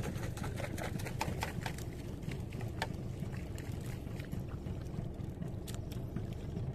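Water sloshing against a small fishing boat, with many scattered sharp ticks over a steady low rumble.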